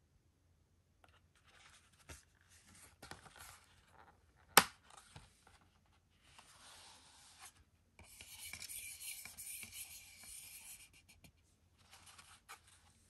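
Hands handling a plastic DVD keep case: rubbing and scraping, with one sharp click about four and a half seconds in and a longer rasping scrape from about eight to eleven seconds in as the case is opened.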